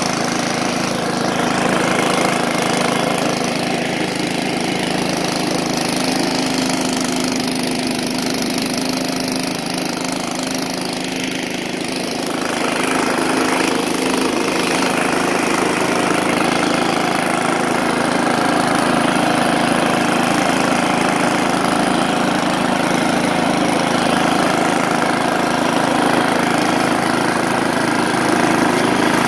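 Ariens 32-inch snowblower's 12 hp engine running steadily while the impeller throws snow out of the chute; the sound fills out a little about halfway through.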